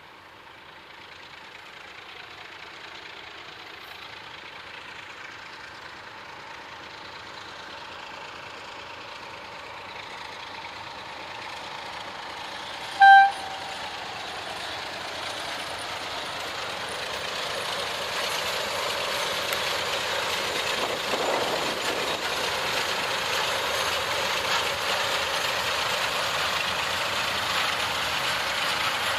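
ST43 (060DA) diesel-electric locomotive with a Sulzer diesel engine approaching, its engine and running noise growing steadily louder and then holding. About halfway through it gives one short horn blast.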